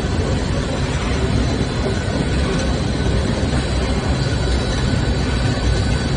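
Industrial machinery of a carbonization paint-removing furnace line running: a loud, steady low rumble and roar with a faint steady high whine over it.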